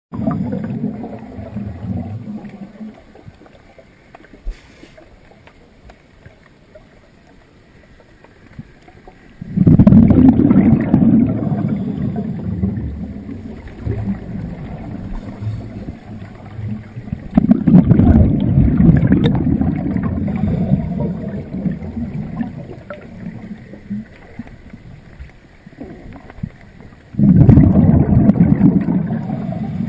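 Scuba diver's exhaled bubbles from the regulator, heard underwater: a fading burst at the start, then three exhalations, each starting suddenly and dying away over several seconds, with quieter pauses between breaths.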